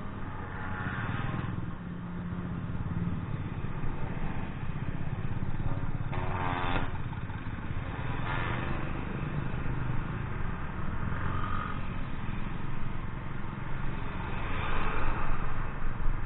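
Motorcycle engine running steadily, with several brief louder swells over it, the strongest about six seconds in.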